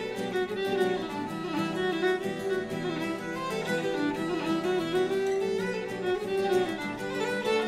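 Instrumental background music, a melody moving over held notes.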